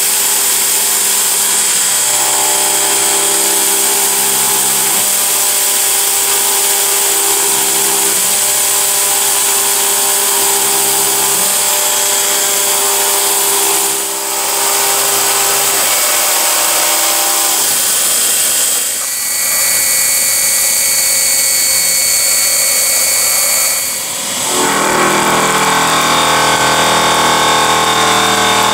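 Torus Pro CNC mill's spindle driving an end mill through aluminium plate: a steady machining whine made of several tones over a strong hiss of mist coolant. The tone changes abruptly three times as the cut changes.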